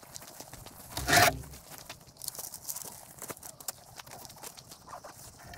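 Footsteps crunching on a gravelly dirt campsite and bags being handled, with a louder brief rustle about a second in.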